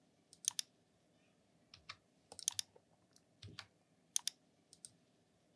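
Computer keyboard and mouse clicks: scattered sharp clicks, single and in small clusters, over a faint low hum.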